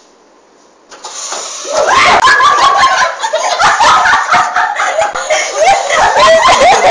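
Women shrieking and laughing at a pocong-costume scare prank, shrill and loud, starting about a second in and at full loudness from about two seconds, with sharp slaps or knocks among the cries.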